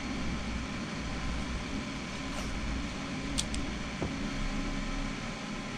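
Steady low background hum, with a few light clicks and taps from parts being handled on a workbench.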